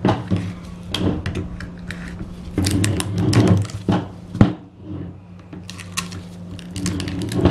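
Pliers clicking and scraping inside a simmered Catalina goat skull, pulling the brittle nasal bone and tissue out of the nasal cavity, in irregular clicks and crunches with a busier stretch near the middle. A steady low hum runs underneath.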